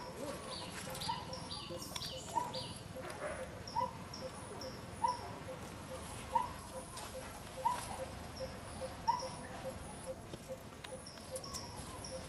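Animal calls from the surrounding trees: a short rising call repeated about every one and a half seconds, over a fast, even ticking and scattered high chirps.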